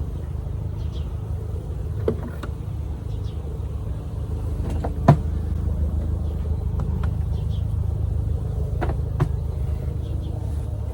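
A steady low rumble with a few sharp wooden knocks and clicks, the loudest about five seconds in, as beehive frames are worked loose and lifted out.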